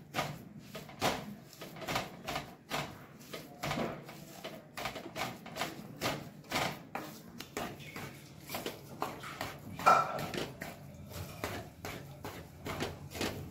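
Wooden spatula scraping and knocking against a non-stick kadai while stirring besan roasting in ghee, an irregular run of about two to three strokes a second, with one louder knock about ten seconds in.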